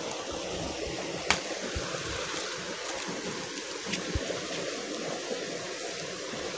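A small stream running steadily, with a sharp click a little over a second in and a few lighter ticks around four seconds from leaves and twigs being handled and picked.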